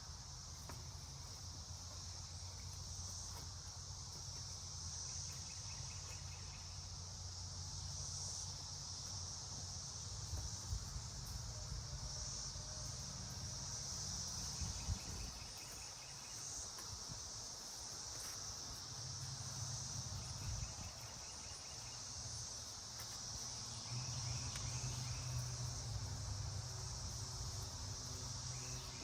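Steady, high-pitched chorus of insects, with short pulsed cricket trills a few times. A low rumble runs underneath, and there are a couple of light knocks.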